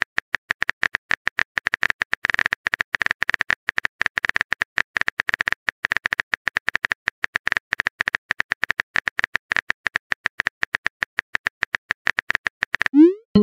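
Phone keyboard typing sound effect: a fast, irregular run of light key clicks as a chat message is typed out. Near the end a short rising whoosh plays as the message is sent.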